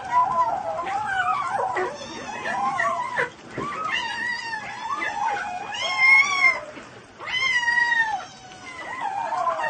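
A cat meowing in a string of long, drawn-out, wavering calls, one after another with short pauses between them.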